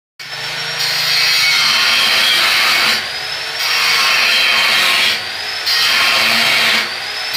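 Angle grinder grinding a steel stair railing: a loud, steady grinding that eases three times, about three, five and seven seconds in, as the disc comes off the metal. Each time the motor's pitch rises, then the grinding comes back.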